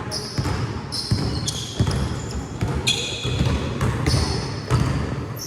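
Basketball game in play: a ball bouncing on a court floor repeatedly, mixed with short, high squeaks of sneakers on the court.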